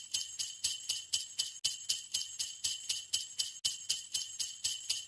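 Jingle bells shaken in a steady, even rhythm, about four shakes a second, with a bright, high ringing.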